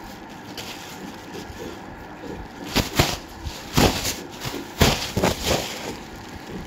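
Close rustling and scraping as the phone rubs against a white long-haired cat's fur and the bedsheet. About three seconds in, a run of five or six short, loud scrapes comes over a couple of seconds.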